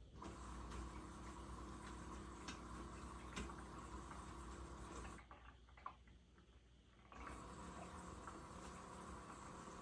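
LG TurboWash front-load washer mid-wash: a steady hum with rushing, splashing water as the drum turns and the circulation pump runs. It stops for about two seconds just past the middle, then starts again.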